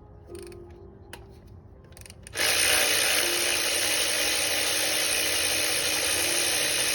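A power tool starts about two seconds in and runs steadily with a loud, hissing whir.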